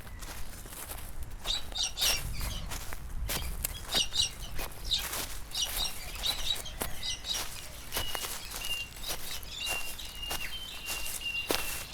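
Birds chirping in short bursts, with sharp clicks or knocks scattered between them. A thin, steady high tone holds through the last few seconds.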